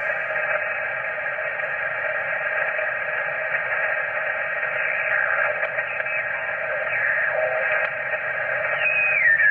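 Yaesu FT-857D HF transceiver in upper sideband giving out static and hiss from its speaker as the dial is tuned up the 20-metre band, with several faint steady tones in the noise. Faint sliding pitches pass mid-way, and a falling whistle comes near the end as the dial sweeps across a signal.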